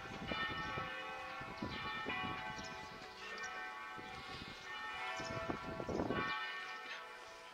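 Church bells ringing, with overlapping strikes whose tones hang on between them.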